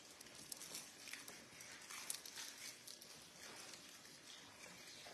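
Near silence: quiet room tone with faint, scattered rustling and small clicks.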